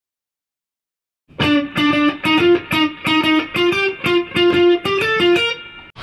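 Electric guitar playing a quick riff of single picked notes, about three a second, starting a little over a second in.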